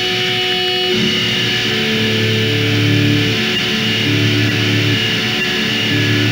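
Noise-rock music: electric guitar holding sustained notes that change about every second over a steady low note, loud and even throughout.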